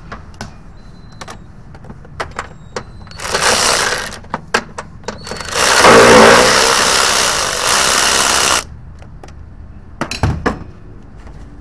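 Power tool spinning out a fuse-box mounting bolt in two bursts: a short one about three seconds in, then a longer one of about three seconds. Light clicks and knocks of the tool on metal come before, between and after.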